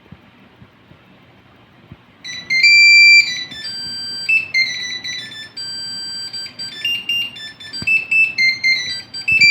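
A PC motherboard speaker beeping out a melody at power-on: shrill electronic tones stepping from note to note, starting about two seconds in after a faint low hum of the machine's fans.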